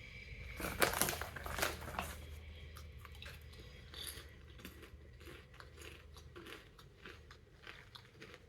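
Crunchy popcorn being chewed close to the microphone: a loud crunching burst in the first couple of seconds, then lighter, irregular crunches.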